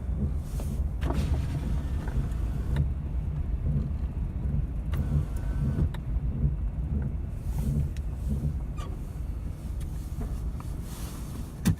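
A 2007 Dodge Dakota's 3.7 V6 and Getrag 238 six-speed drivetrain pulling away from a cold start, with a steady low rumble and a faint, regular pulse. This is the grind or rubbing that comes at first takeoff on a cold morning, whose cause the owner has not found.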